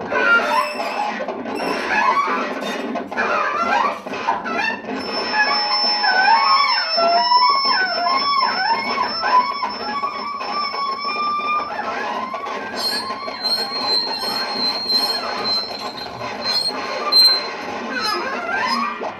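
Free-improvised percussion and instrument texture: a drum kit played with extended techniques, its drumheads rubbed and scraped with objects, giving squeals and gliding pitches with scattered knocks. A high, thin steady tone sounds over it for several seconds twice.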